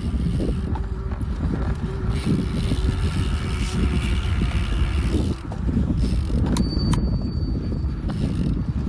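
A single bicycle bell ding about two-thirds of the way through, ringing clearly for about a second and a half, over a steady low rumble.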